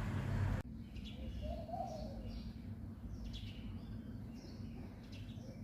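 A louder steady rumble cuts off suddenly just after the start, leaving birds chirping in short, repeated high calls. About a second and a half in there is one short, lower call that rises and falls.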